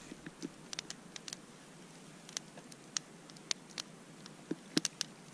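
Metal spoon clinking and scraping against a metal camp pot while eating fish soup: scattered light clicks at uneven intervals, a few sharper ones near the end.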